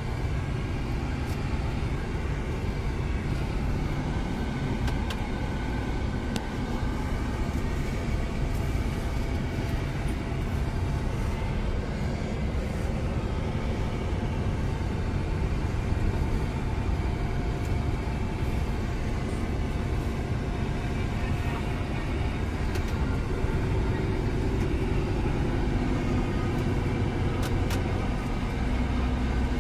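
Steady low rumble of a Scania semi-truck's engine and tyres heard from inside the cab as it descends a steep mountain grade, with a few faint ticks.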